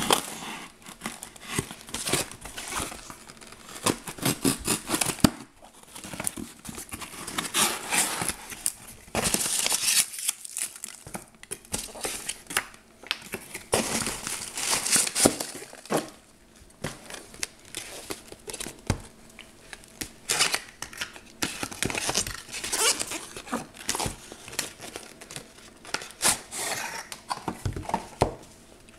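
Cardboard shipping box being unpacked by hand: packing tape slit with a knife and torn, then cardboard flaps and packing material rustling and crinkling, with irregular scrapes and small knocks of cardboard handled on the table.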